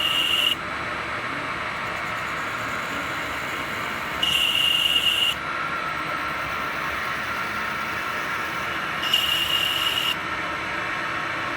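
Retrofitted CNC lathe running steadily while its tool cuts an aluminium workpiece in repeated passes. Three short bursts, each about a second long with a high squeal and hiss, come roughly every five seconds as the tool bites.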